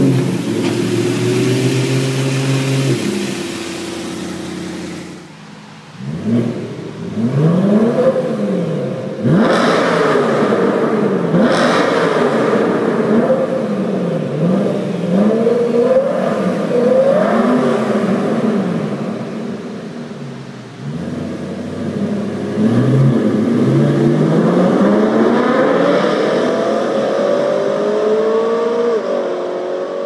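BMW M3 E92's V8 with a Herrmann valve exhaust, revved hard again and again: the pitch climbs and drops every second or two, with two sharp cracks in the middle, then one long rising pull near the end. Heard in a concrete road tunnel.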